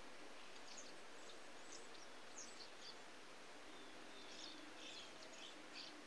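Faint, short, high chirps and small whistled glides from songbirds at a feeder, scattered and thickest in the second half, over a steady hiss.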